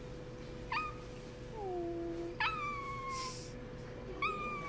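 A cat meowing repeatedly: short, high calls that fall in pitch, the longest about halfway through, with a lower drawn-out call between them and a faint steady hum underneath.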